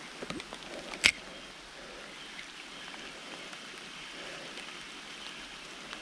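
Steady rain falling, with a single sharp click about a second in.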